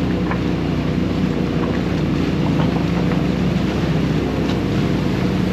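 Side-by-side UTV engine running steadily at an even speed, heard from on board, with a few faint knocks and rattles.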